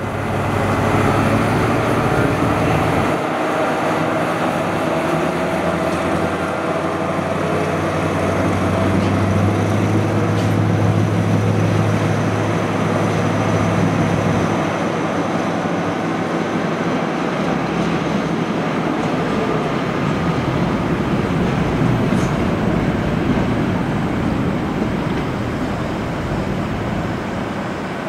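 A train running, a steady loud rumble with a low hum that eases off about halfway through.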